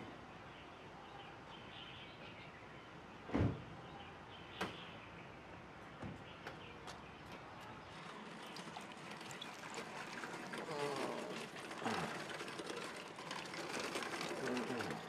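Outdoor ambience with a single thud a few seconds in. Then a wheeled stretcher trolley rattles and clicks over paving, getting louder as it approaches, with a few faint bird chirps.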